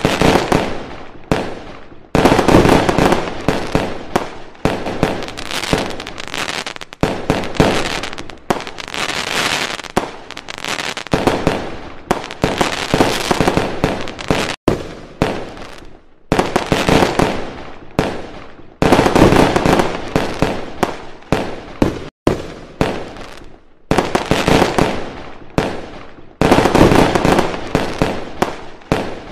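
Fireworks going off in quick succession, one sharp burst after another, with a few brief pauses.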